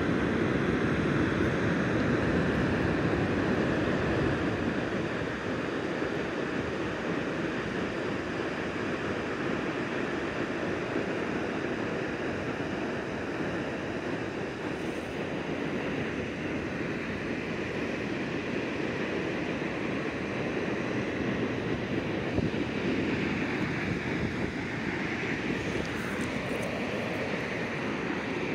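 Steady rushing of flowing river water, an even hiss-and-rush with no distinct events.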